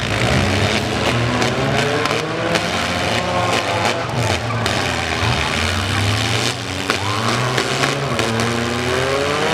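Several four-cylinder demolition derby cars revving their engines hard, the pitches rising and falling as they ram one another, with occasional metal crunches of impacts.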